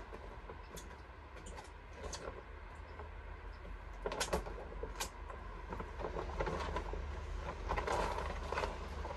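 A few sharp knocks, about four and five seconds in, then rustling and scraping in the second half, over a steady low hum.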